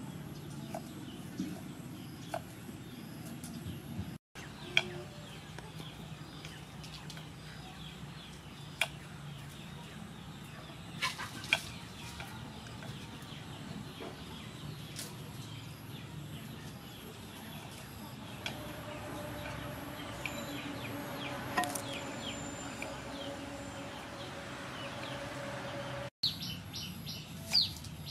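Kitchen knife cutting vegetables on a wooden chopping board, with scattered sharp taps of the blade hitting the board. Birds chirp in the background.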